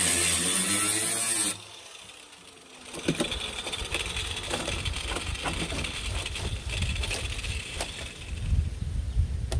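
Cordless angle grinder grinding into a rusted-out rocker panel, its pitch wavering under load, then cutting off about a second and a half in. After a brief lull come irregular knocks, scrapes and rustles as loose rusty sheet metal is pulled out by hand.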